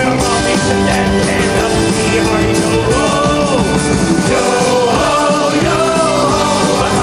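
Live rock band playing loudly, with drum kit and electric guitars and a voice singing over them.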